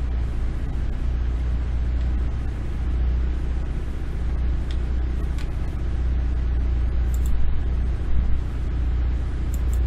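Steady low rumbling hum of background noise with a few faint, short clicks from keyboard keys.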